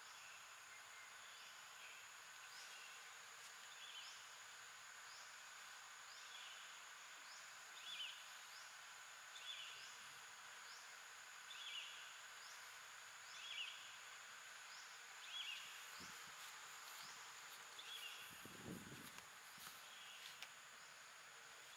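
Faint steady drone of insects, with a short high call repeated about every two seconds. A brief low rumble comes near the end.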